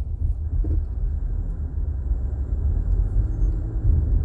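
Road noise inside a moving car's cabin: a steady low rumble.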